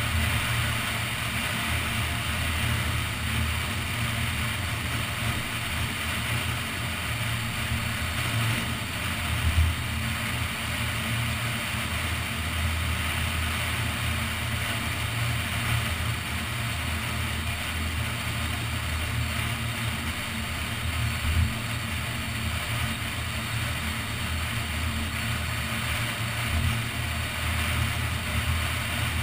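Steady wind buffeting and road rumble from a car driving at highway speed, heard through a camera mounted on its roof. Two brief bumps stand out, about a third of the way and two-thirds of the way through.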